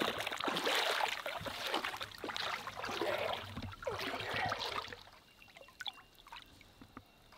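Water splashing and trickling, with small irregular splashes, dying away about five seconds in.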